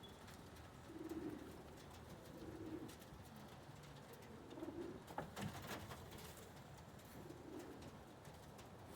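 Domestic pigeons cooing softly: four low coos spaced a couple of seconds apart, with a few faint clicks among them.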